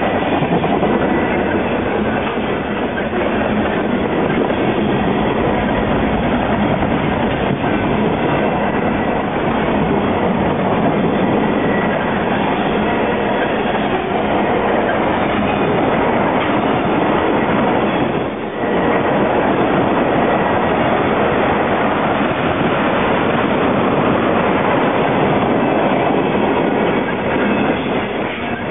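Freight train's tank cars and boxcars rolling past at close range: a steady, loud rumble of steel wheels on the rails, with a brief dip about two-thirds of the way through.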